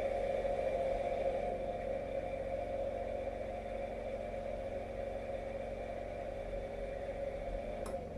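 Washing machine motor turning the drum steadily during the wash, stopping just before the end, over the steady hum of the petrol generator powering it. A single click comes shortly before the drum stops.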